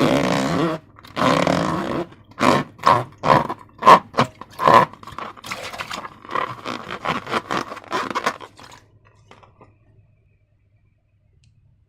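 Slime being squeezed and stretched by hand, making a run of sticky, crackling squelches. The first two last about a second each, then come many short ones in quick succession. They die away a little before nine seconds in.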